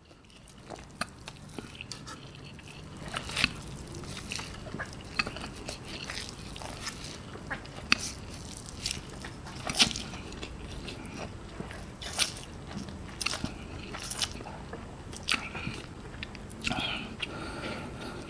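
A person eating spicy instant noodles with chopsticks: slurping and chewing big mouthfuls, with irregular wet mouth smacks and clicks.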